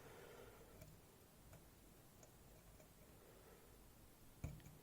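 Faint, sparse ticks of a lock pick working the pins of a 7-pin Goal Z pin-tumbler cylinder, with a slightly louder click near the end.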